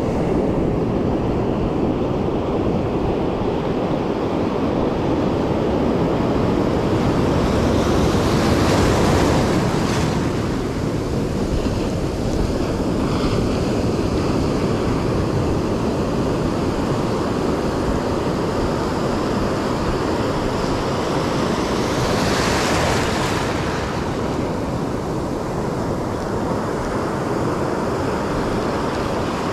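Ocean surf washing and rushing around the legs in the shallows, with wind buffeting the microphone. Two louder rushes of breaking whitewater come through, about a third of the way in and again about three-quarters of the way in.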